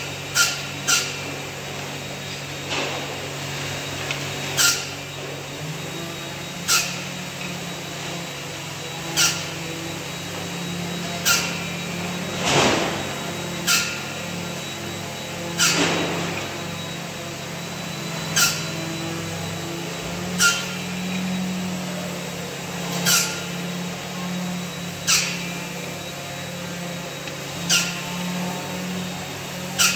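Miter saw chopping thin wooden slats into short lengths: a sharp crack as the blade goes through each slat, roughly every two seconds, over a steady machine hum. A couple of the cuts are longer and rougher.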